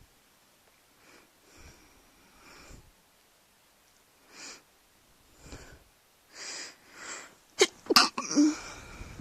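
A person's sneeze build-up: several soft, short breaths spaced a second or so apart, then a loud sneeze about three-quarters of the way through, coming in two sharp bursts close together.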